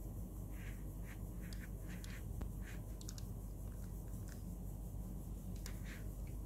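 Faint short scrapes and light clicks of a diecast model car being handled and pushed along a foam mat, over a steady low hum.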